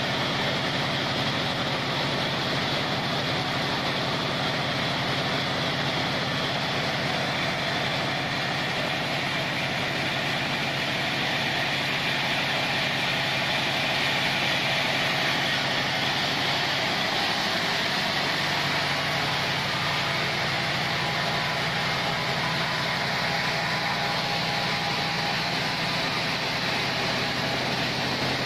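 Engine of a log band sawmill running steadily.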